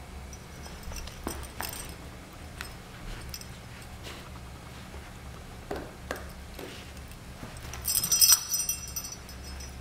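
Scottish terrier rummaging through a plush toy house, giving scattered light taps and knocks. About eight seconds in comes a loud burst of metallic jingling as the dog yanks the toy about.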